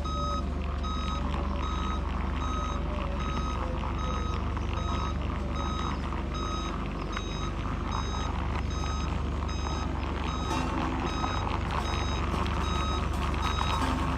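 A heavy construction machine's backup alarm beeping steadily, about two beeps a second, over the low rumble of its diesel engine.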